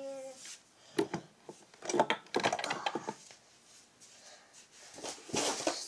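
Scattered soft knocks, clicks and rustles of someone moving about close to the microphone. There is a brief vocal sound at the very start.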